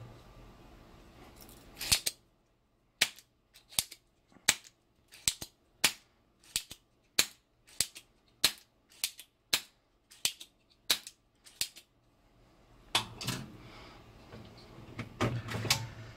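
A quick series of sharp clicks, about two a second, with dead silence between them, then rustling handling noise near the end.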